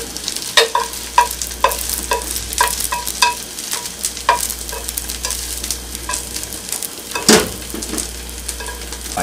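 An egg-and-rice omelette sizzling in a nonstick frying pan over high heat as its outside is seared firm. Wooden chopsticks knock against the pan every second or so, with a louder knock about seven seconds in.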